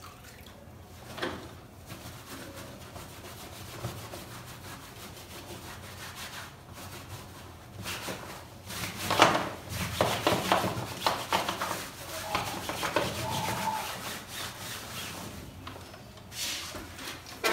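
Damp soapy cloth rubbed back and forth over the fabric seat back of a swing bassinet: quick scrubbing strokes that set in about eight seconds in and run for several seconds, loudest at their start, with a short scuff near the end.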